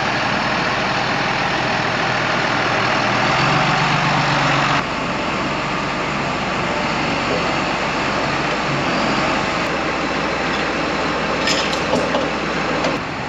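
A large John Deere tractor's diesel engine idling steadily close by, with a few short metal clanks near the end.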